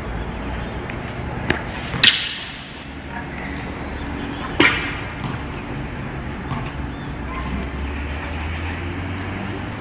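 A kung fu staff swung and struck during a Cha Quan staff form: two loud sharp cracks about two and a half seconds apart, each with a short ringing tail, and a few lighter knocks around them.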